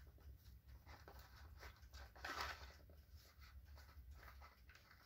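Near silence with faint plastic rustling and small clicks as a screw cap is worked against the spout of a soft mayonnaise pouch that it does not fit. A slightly louder rustle comes about two and a half seconds in.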